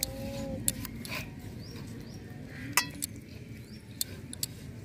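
Scattered light clicks and taps of a clay plate and fingers against a steel bowl as mustard paste is scraped onto hilsa pieces, with one short metallic ring about three seconds in.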